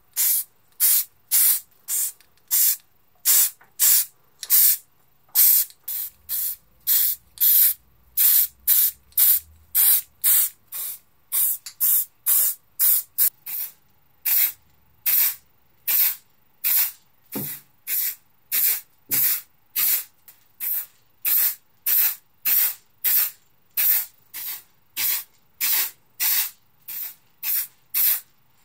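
Aerosol spray paint can spraying in short squirts of hiss, about two a second, with brief pauses between them.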